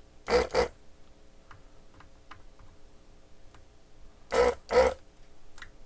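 Desoldering gun's vacuum pump running in short bursts, two quick bursts just after the start and two more about four and a half seconds in, sucking molten solder off a component's legs. Faint ticks fall in between.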